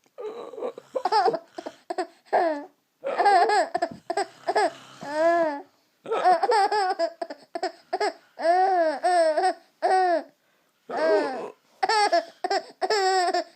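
A five-month-old baby laughing in repeated short bursts of high-pitched voice, with brief pauses between them.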